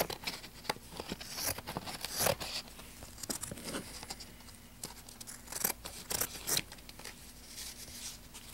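Scissors snipping through cross-stitch fabric, a string of irregular cuts several a second, as the finished piece is trimmed to fit its frame.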